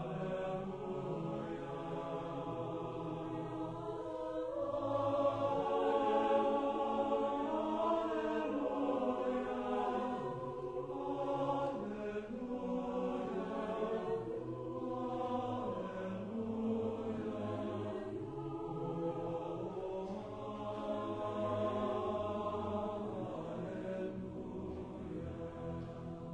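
Choir singing a slow Alleluia in sustained chords, low voices holding long notes beneath slowly moving upper parts, swelling louder about five seconds in.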